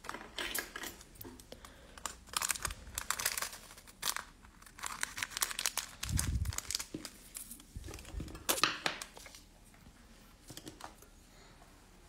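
Crinkling and rustling of a small clear plastic resealable bag being handled and opened, in repeated bursts, with a couple of soft thuds near the middle; the rustling dies down for the last couple of seconds.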